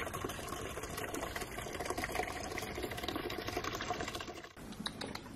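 A thin stream of water running from a water tank's tap into a plastic bucket, a fast, even patter that drops away about four and a half seconds in.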